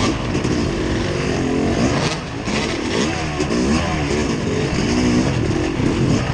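An engine revving up and down repeatedly, its pitch rising and falling every second or so, as it works over rough ground. Steady wind or rumble noise runs underneath.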